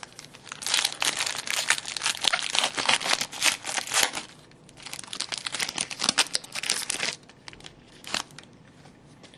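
Foil wrapper of a Black Diamond hockey card pack crinkling and tearing as it is opened, in two long stretches of crackling and then a short rustle near the end.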